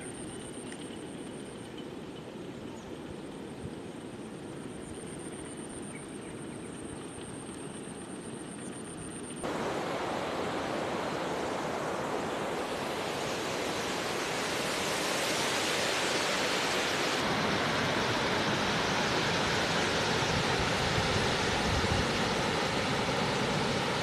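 Steady rushing hiss of water pouring over a wide, low waterfall. It is quieter and duller for the first nine seconds or so, then jumps suddenly to a fuller, louder hiss, swelling a little more near the end.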